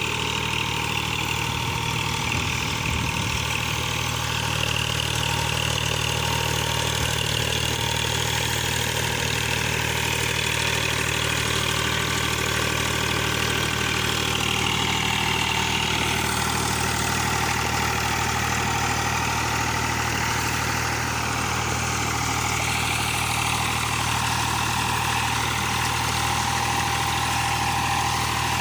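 Eicher tractor's diesel engine running steadily under load, working a rotavator through deep, flooded mud.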